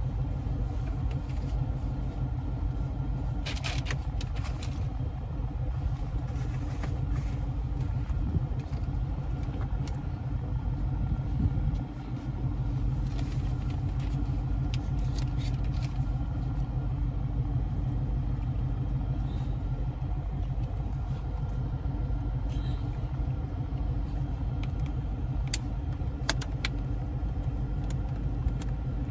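Steady low rumble of a car heard from inside the cabin, with scattered light clicks and rustles from trim pieces being handled.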